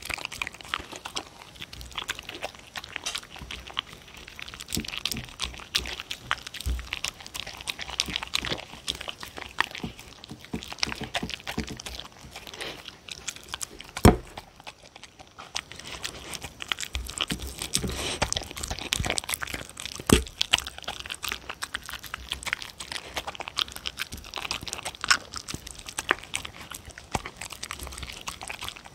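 A dog eating soft food from a bowl right at a microphone: chewing and licking with many small clicks. A louder knock comes about halfway through, and another about two-thirds in.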